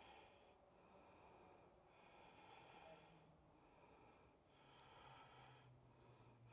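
Near silence, with faint breaths coming and going in short soft hisses.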